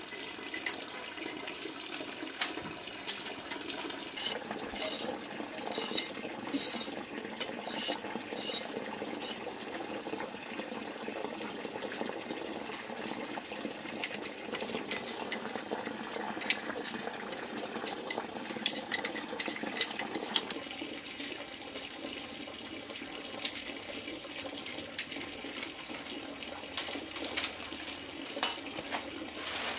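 Water running or splashing steadily, with scattered sharp clicks and knocks, including a quick run of them a few seconds in. The running water becomes quieter about two-thirds of the way through.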